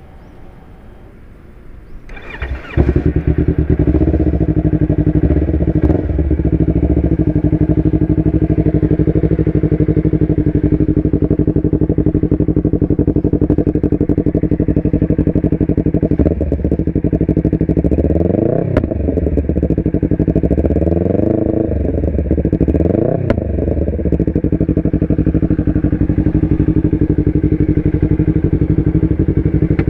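Yamaha R25's 250 cc parallel-twin engine with an Akrapovic exhaust, cranked on the starter and catching about two and a half seconds in, then idling steadily. A few quick throttle blips rise and fall in pitch in the second half.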